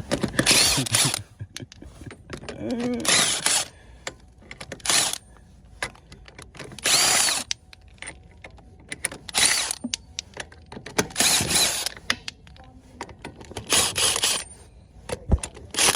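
Handheld power tool run in short bursts of under a second, about every two seconds, with small clicks and knocks between.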